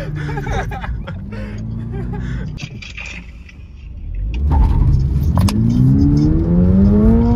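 Toyota GR86's 2.4-litre flat-four engine heard from inside the cabin: revs easing off, a brief lull during a gear change, then the engine pulls hard with revs climbing before levelling off near the end.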